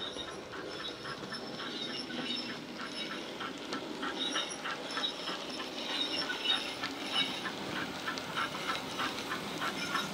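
Bachmann Ivatt 2MT tank locomotive model's LokSound 5 DCC sound decoder playing steam exhaust chuffs through a small sugarcube speaker, about four beats a second, growing louder as the loco approaches.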